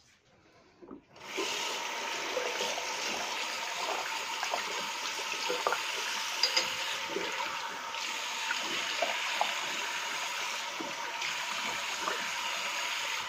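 Bathroom water tap turned on about a second in and running steadily, with small splashes and clicks over the flow.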